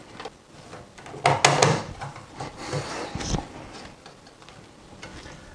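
Sheet-metal lid of a Saab ICM2 radio's steel housing being pushed and snapped back into place. A quick cluster of sharp metallic clicks comes about a second and a half in, followed by some scraping and a dull knock around three seconds.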